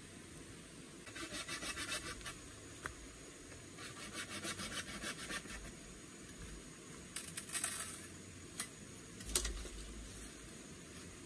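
A machete blade sawing back and forth across a bamboo pole, in two quick runs of rapid strokes and a shorter third run. A couple of sharp knocks follow near the end.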